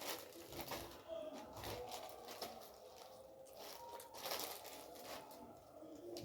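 Faint eating sounds from a loaf of bread being torn and chewed: a string of short, crackly noises.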